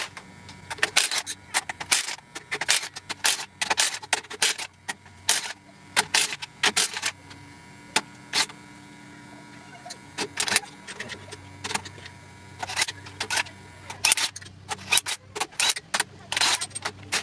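Hand tools working bolts on an LS V8 engine block: irregular sharp metallic clicks and clinks from a socket ratchet and tools, a few per second, in uneven bursts.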